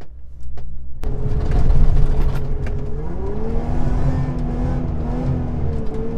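Mitsubishi Pajero's engine revving under load as the 4x4 climbs a steep sand dune, with a steady whine whose pitch steps up about three seconds in. The sound cuts in suddenly about a second in.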